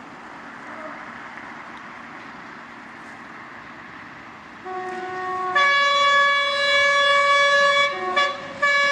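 Two-tone horn of an approaching diesel multiple unit, after a few seconds of steady background hiss. About halfway in it gives a short lower note, then a loud higher note held for a couple of seconds. Near the end a brief lower note breaks in before the high note sounds again.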